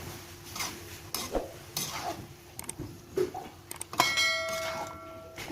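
Metal utensil knocking and scraping against a cooking pan, then one sharp strike about four seconds in that rings for over a second, metal on metal.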